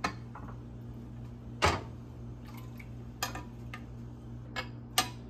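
A metal ladle clinks and knocks against a glass baking dish about six times, sharpest about a second and a half in, as cooking juices are spooned out of the dish, over a steady low hum.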